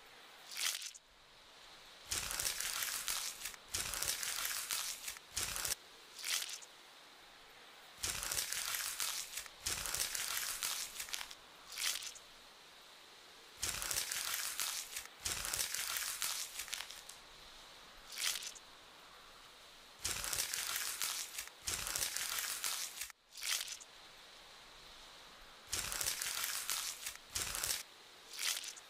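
Crinkling, crunching ASMR sound effects that go with a knife scraping bugs off skin. They come in irregular bursts of one to three seconds, with short quiet gaps and a few single crackles between them.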